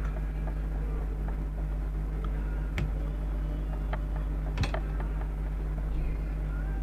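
Small metallic clicks as a screwdriver works at a tiny C-clip on an air rifle's cocking-arm pin, two of them sharper, about three and four and a half seconds in, over a steady low hum.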